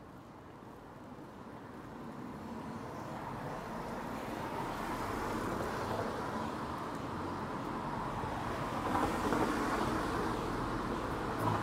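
Road traffic noise, a steady wash of passing vehicle sound that swells over the first five seconds and then holds.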